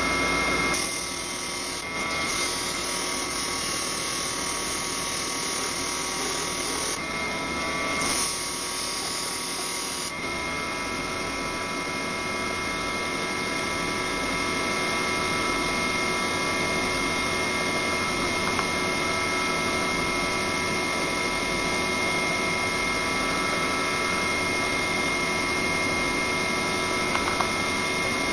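Bench disc sander running with a steady motor hum, while an LED light bulb is pressed against the spinning abrasive disc and ground away. There is a harsh grinding hiss over the first ten seconds, then a steadier running sound.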